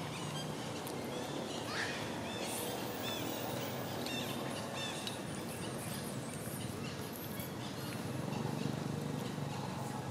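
A series of short, high, chirping animal calls over outdoor ambience, with a low steady hum underneath.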